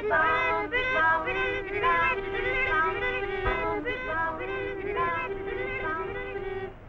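A child's high voice singing a song, one clear held note after another, stopping abruptly near the end. A faint low hum runs underneath.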